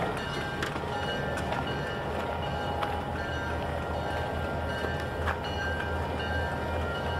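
Diesel switching locomotives running at low throttle with a steady low hum, while a train is picked up. Brief high squeals come and go, and a few sharp metallic clanks sound, the loudest about five seconds in.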